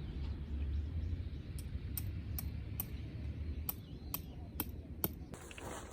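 A low, steady vehicle rumble. Over it come two runs of four sharp, evenly spaced ticks, about two and a half a second, and the rumble drops away near the end.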